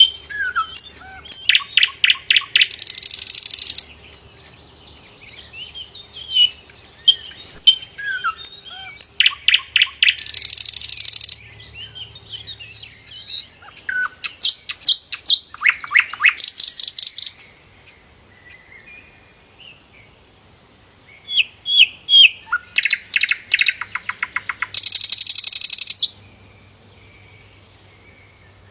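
Sikatan londo flycatcher singing vigorously: short chirps and down-slurred whistles broken by four long, fast rattling trills. There is a brief lull near the two-thirds mark.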